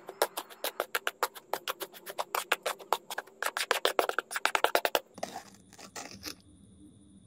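Small metal spoon scraping and tapping through wet cement mortar on a board: quick, repeated clicking strokes that stop about five seconds in, leaving a faint steady hum with a thin high whine.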